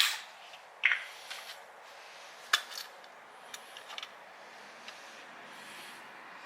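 A few sharp clicks and knocks of hard objects being handled, the loudest at the very start and about two and a half seconds in, then faint steady hiss.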